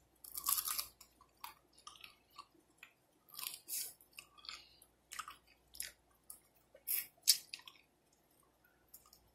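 Close-up chewing and crunching of a fried chicken wing's crispy breading, in irregular crackly bites; the loudest crunches come about half a second in, near four seconds and around seven seconds.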